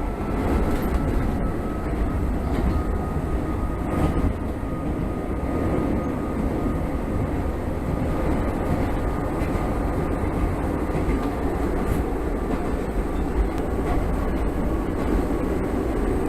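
Shintetsu electric train running: a steady rumble of wheels on rail with a faint thin whine that sinks slightly in pitch over the first several seconds.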